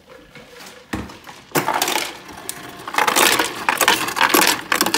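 Ice cubes clattering out of a refrigerator's door ice dispenser into a blender jar, in a dense rattle that starts about a second and a half in and is loudest in the second half. A low thump comes just before it.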